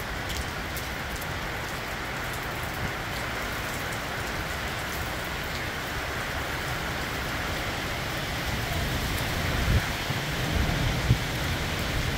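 Steady heavy summer rain falling, an even hiss. In the last few seconds a low rumbling grows louder, with a few dull thuds.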